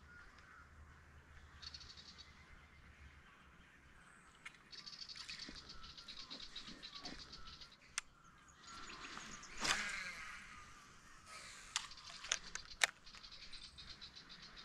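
Birds chirping faintly, with a few sharp clicks and one louder knock about ten seconds in.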